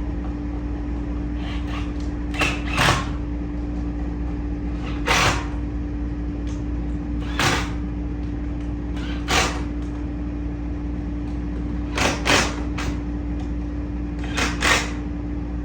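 Short, sharp clunks and knocks, about nine of them and some in quick pairs, from the chair parts being pressed down and fastened together, over a steady low hum.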